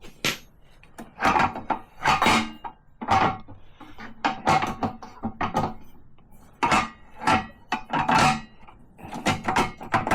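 Metal and plastic table saw parts being handled and fitted: a string of about a dozen irregular clattering knocks, some ringing briefly.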